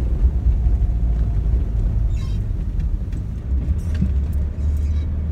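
Steady low engine and road rumble of a car heard from inside the cabin while driving.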